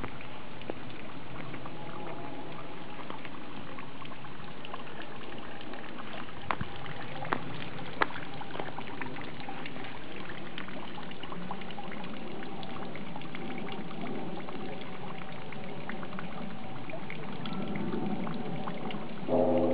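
Water pouring and trickling steadily, with a few sharp drips or clicks around the middle. Just before the end, a ringing tone with several steady pitches starts suddenly.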